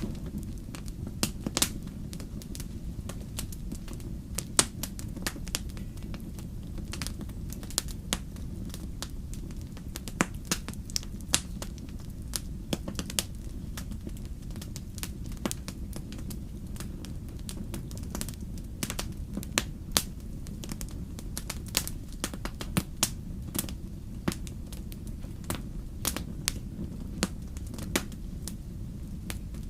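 Fire in a fireplace crackling, with sharp irregular pops, some much louder than the rest, over a steady low rumble.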